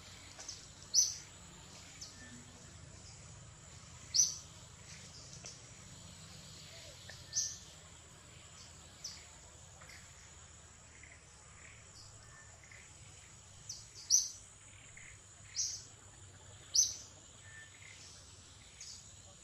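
Tree-canopy ambience: short, sharp, high chirps about every one to three seconds over a steady high insect drone.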